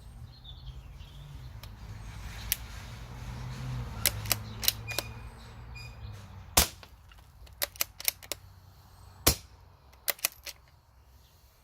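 Two moderated shots from a CZ452 .22LR bolt-action rifle firing subsonic rounds through a Parker Hale moderator, each a short sharp report with no supersonic crack, about three seconds apart. Lighter metallic clicks of the bolt and action are worked around them.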